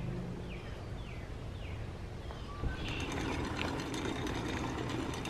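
A bird calls a few short, falling notes over a low hum. About two and a half seconds in this gives way to a bicycle riding along a paved trail: a steady rolling rumble with frequent small rattles and ticks.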